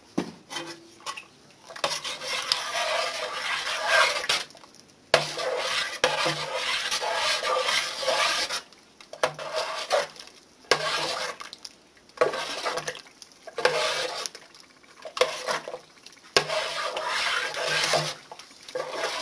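A spoon stirring broth in a large stainless steel pressure cooker pot, scraping and clinking against the pot in stretches of a second or two with short pauses between, and a few sharp knocks.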